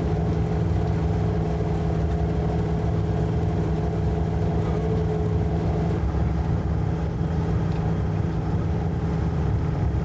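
Sailboat's auxiliary engine running steadily under way, a low, even drone that holds the same pitch throughout.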